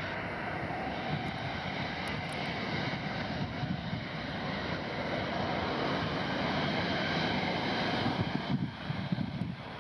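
Jet engines of a Delta Boeing 767 running steadily as the airliner rolls away down the runway, mixed with gusty wind on the microphone.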